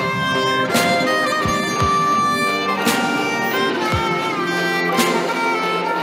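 Background music: a violin melody over strings, with drum and cymbal hits every second or two.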